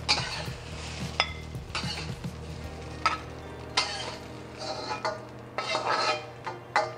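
A metal spatula scraping scrambled eggs out of a wok, a series of short scrapes and clinks against the wok about once a second, over a light sizzle.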